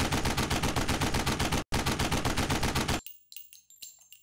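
Automatic gunfire: a long, steady burst of about ten shots a second, with a momentary break near the middle, stopping abruptly about three seconds in. Faint metallic clinks follow.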